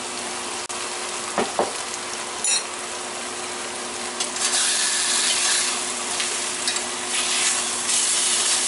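Bottom-round steak sizzling in a stainless steel skillet. The sizzle grows louder about four seconds in as the steak is worked with tongs and a spatula, with a few light clicks of the utensils against the pan.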